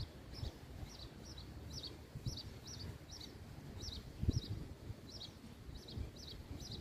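A small bird chirping over and over, short high calls about three a second, over a low rumble of wind on the microphone.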